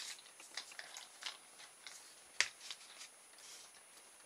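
Small metal kit parts and a plastic motor base being handled on a tabletop: light scattered clicks and rustles, with one sharper click about two and a half seconds in.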